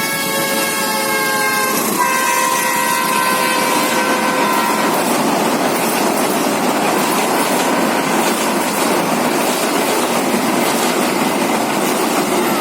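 Train horn sounding a chord of several tones: one blast ends near the start and a second blast follows, lasting about three seconds. After it, the train runs past with a steady loud clatter of wheels on the rails.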